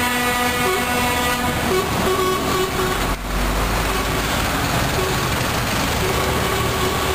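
Convoy of lorries driving past with engines running and tyre noise, their horns sounding: a held horn chord that stops about one and a half seconds in, then shorter toots now and then.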